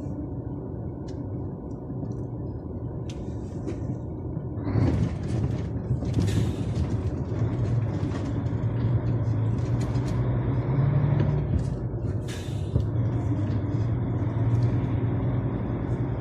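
DAF truck's diesel engine running while driving, heard from inside the cab as a steady low hum, with short bursts of noise about five, six and twelve seconds in. The driver suspects the engine is misfiring on one cylinder under load.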